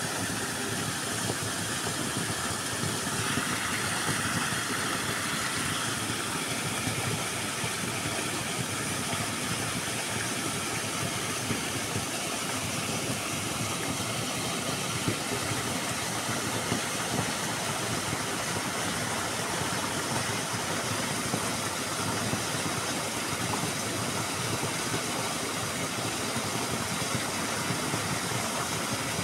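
Small waterfall: water pouring steadily over a brick ledge and splashing into a pool below, a constant rushing noise.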